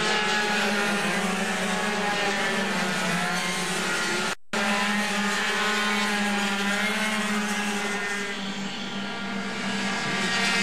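Several 50cc two-stroke racing scooters running flat out, a high buzzing whose pitch rises and falls as they accelerate and ease for corners. The sound drops out for a moment about four seconds in.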